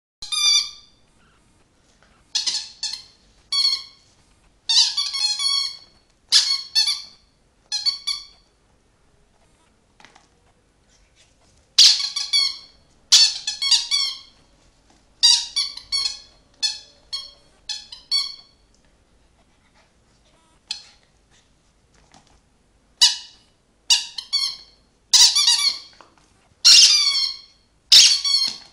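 Rubber squeaky toy squeaking in quick runs of high-pitched squeaks as a Samoyed puppy bites and chews it, with quiet pauses of a couple of seconds between runs.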